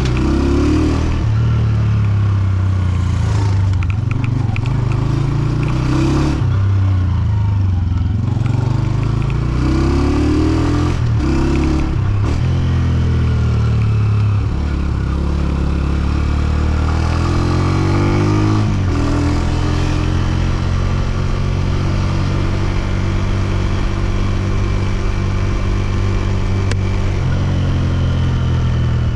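Honda CG125's single-cylinder four-stroke engine and exhaust running under way, the revs climbing and dropping back several times as the bike accelerates and slows.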